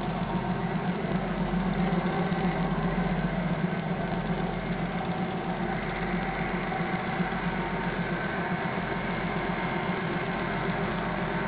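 A vessel's engine running steadily at constant speed.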